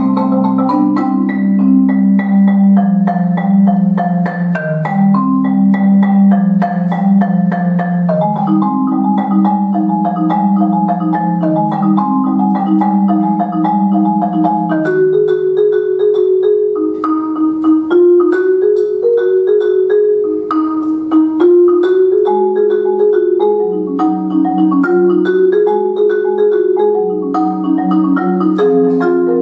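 Marimba played with mallets in a fast, rhythmic stream of notes. About halfway through, the low notes drop out and the line moves higher. A few seconds later the low notes come back underneath.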